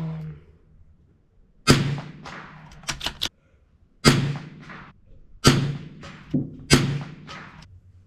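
Four shots from a CZ 457 bolt-action rimfire rifle, one to two and a half seconds apart, each trailing off, with a few fainter clicks between them.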